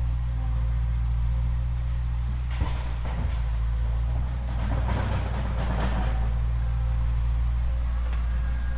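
Remote-control toy excavator's small electric motors and gearboxes whirring steadily. A sharp click and a rattling clatter come about two and a half seconds in, and more clatter follows around five to six seconds.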